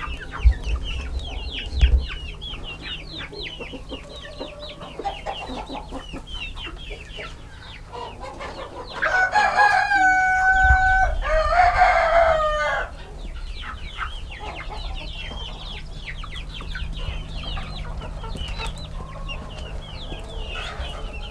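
A flock of chickens clucking and giving short repeated calls while feeding on fresh grass and clover. About nine seconds in, a rooster crows, the loudest sound, lasting a few seconds.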